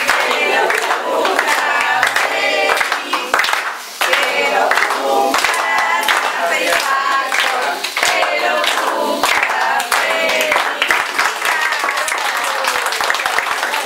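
A group of people singing together, with hand clapping mixed in.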